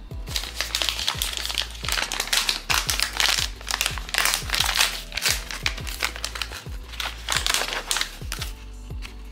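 Blind-box figure packaging crinkling in quick, repeated rustles as it is unwrapped by hand, over background music with a steady low beat.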